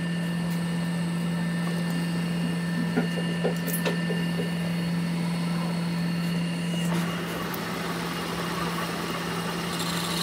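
A workshop machine's motor running with a steady low hum, with a few light clicks about three to four seconds in.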